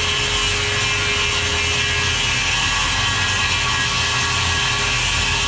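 Circular saw running steadily as it cuts through a UHMW plastic sheet, a continuous cutting noise with a steady motor whine.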